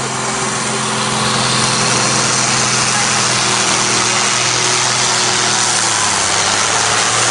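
Diesel tractor engine running flat out under heavy load as it drags a weight sled, pouring out black smoke. It grows louder over the first second or two, then holds a steady, even drone.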